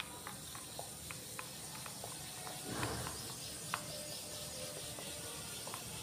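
A wooden stick stirring liquid in a plastic measuring beaker, its tip knocking the beaker wall in light, irregular clicks, with one louder swish of liquid a little under three seconds in. It is stirring a precipitating chemical into the dissolved-gold solution.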